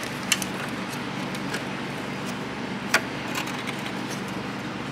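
Light clicks and taps of needle-nose pliers and small metal parts being handled, with one sharper click about three seconds in, over a steady low hum.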